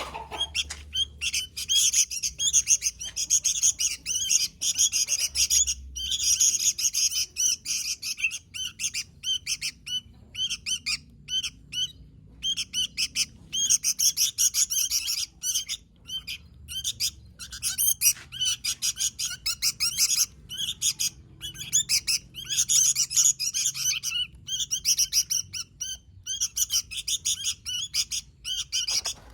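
Sooty-headed bulbul (kutilang) singing continuously in quick, busy runs of chirping notes, broken by short pauses.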